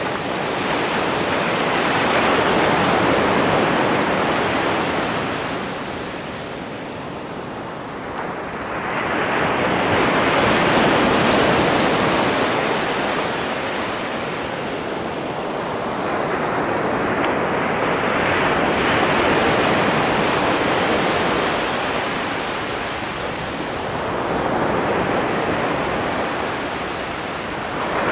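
Ocean surf: waves breaking and washing up the sand, surging and fading in four slow swells, each about seven or eight seconds apart.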